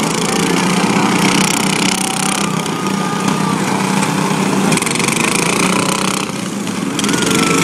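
Several riding lawn mower engines running together as the mowers drive around a dirt track, with a short dip in loudness about six seconds in.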